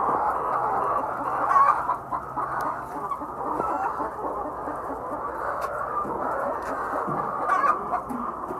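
A flock of chickens clucking together in a continuous chorus of overlapping calls.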